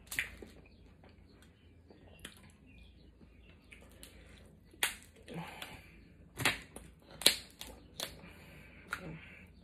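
Cooked snow crab leg shells being cracked and snapped apart by hand: a string of short, sharp cracks, the loudest about seven seconds in, with softer rustling between them.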